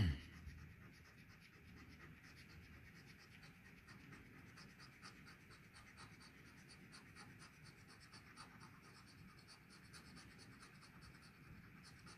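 A coin scratching the coating off a paper scratch-off lottery ticket: faint, quick, repeated rasping strokes.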